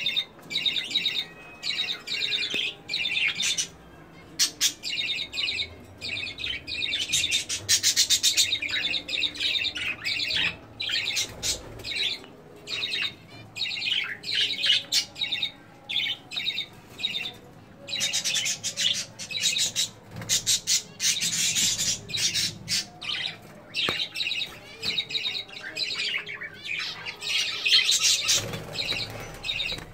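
Caged budgerigars chirping and squawking, a busy, continuous chatter of many rapid short calls from several birds, rising to louder bursts at times.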